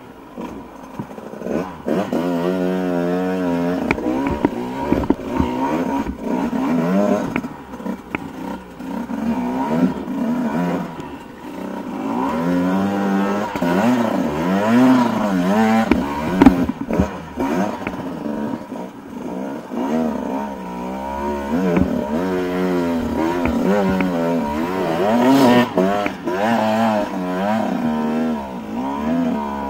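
Dirt bike engine revving up and down constantly under load on a steep rocky climb. Sharp knocks and clatter come from the bike striking rocks.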